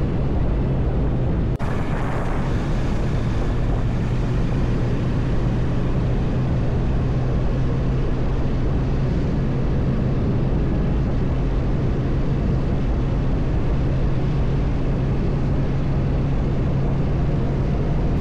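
Steady wind rush on the camera microphone of a moving motorcycle, with a constant low engine drone underneath, as a Bajaj Dominar 400 is ridden at a steady speed.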